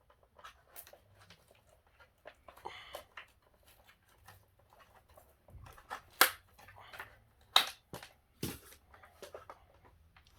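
Plastic clicks and knocks from handling a Gtech AirRam MK2 cordless vacuum as its roller bar is released and taken out, with a few sharper clacks in the second half.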